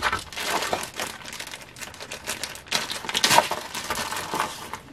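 Wrapping being crinkled and rustled by hand, an irregular crackle with many small sharp clicks, as a jewelry piece is unwrapped and handled.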